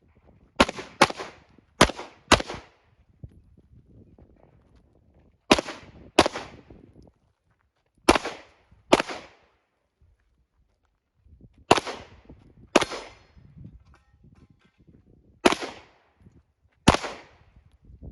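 Handgun shots in quick pairs during a USPSA stage: twelve shots in six doubles, the two shots of each pair under a second apart, with pauses of one to three seconds between pairs.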